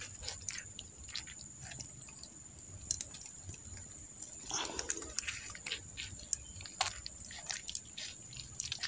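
Wood and charcoal embers crackling, with sharp irregular pops and clicks, over a steady high-pitched hiss.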